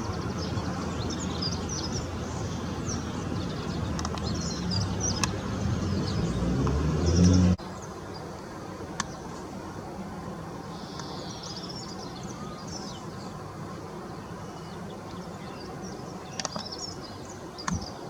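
Small garden birds chirping over a low rumble; about seven and a half seconds in, the rumble stops abruptly, leaving quieter chirps with a few light clicks.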